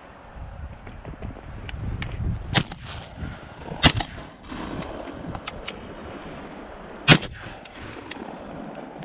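Two loud shotgun shots about three seconds apart, fired at a flying mallard, with a lighter sharp knock and handling noise just before the first shot as the gun is swung up.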